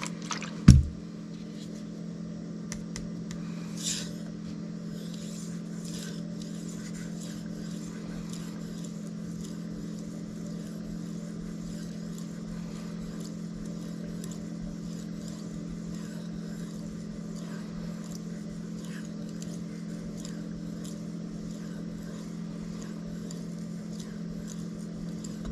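Cold Steel Mayhem knife blade stroked back and forth on a Shapton Kuromaku whetstone, a faint soft scrape on each pass over a steady low hum. A dull thump about a second in is the loudest sound.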